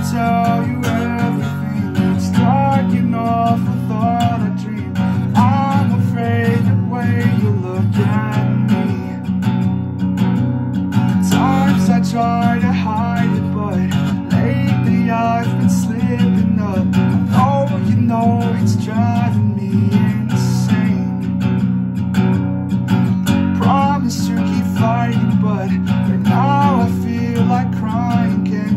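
Acoustic guitar strummed with a capo on the neck, with a man singing over it.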